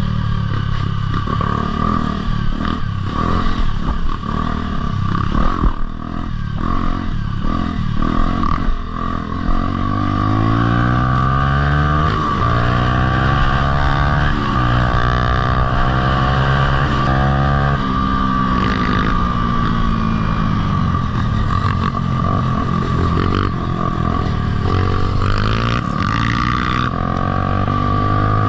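Dirt bike engine being ridden hard: choppy, on-and-off throttle for the first several seconds, then revs climbing and dropping back again and again through gear changes, before holding steadier. A steady high whine sits under it throughout.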